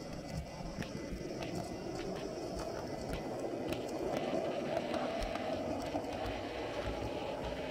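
Model train running along the layout's track, heard from a camera riding on it: a steady whirring hum from the motor and wheels, with scattered sharp clicks.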